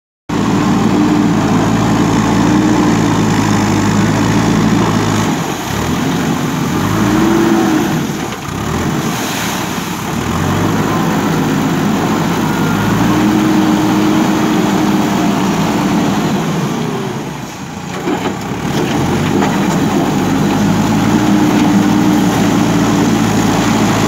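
Diesel engine of a JCB 3DX backhoe loader running under working load, its revs sagging and picking up again several times.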